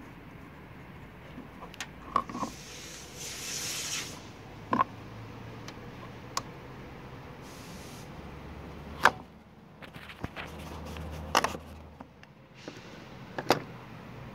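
Hard plastic clicking and knocking from an old thermostat housing and its hose and sensor connectors as they are handled and worked loose: about seven sharp clicks at uneven intervals, with a brief rustle between the first few.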